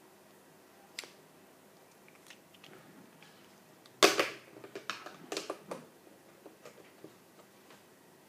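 Scattered light clicks and knocks, with a short cluster of tapping and rustling about four seconds in.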